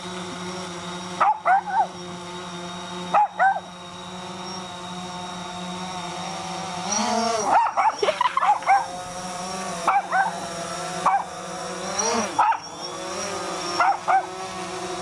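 Bichon frise barking and yipping in short bursts at a hovering DJI Phantom 4 quadcopter: a pair near the start, a quick flurry around the middle, then a bark every second or so. Under the barks the drone's propellers keep up a steady hum.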